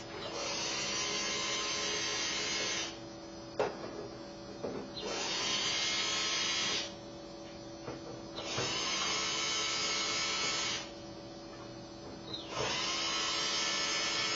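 Cordless drill running in four bursts of two to four seconds each, with short pauses holding a few small clicks and knocks.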